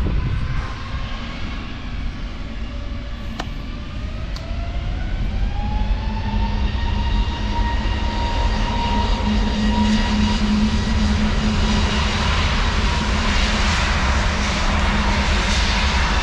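Airliner engines running up, a whine that rises in pitch over a few seconds and then holds steady while the overall sound grows louder, over a constant low drone.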